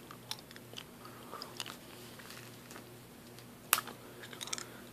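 Close-miked mouth sounds of a hard cough drop being eaten: scattered sharp clicks and small wet smacks as the candy moves against the teeth, with one louder click about three-quarters of the way through and a quick cluster just after.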